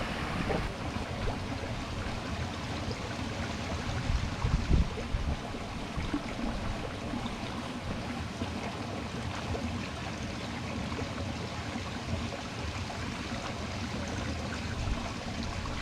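Steady rush of moving water, with a low rumble beneath it that swells louder about four to five seconds in.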